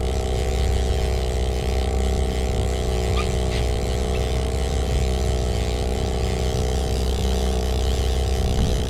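Fishing boat's motor running steadily under way: a constant low rumble with a steady engine hum above it.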